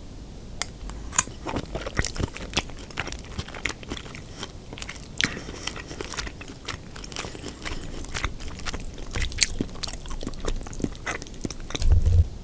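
Close-miked chewing with many sharp crunches, from eating crispy battered sweet and sour pork and fried rice. A low thud near the end is the loudest sound.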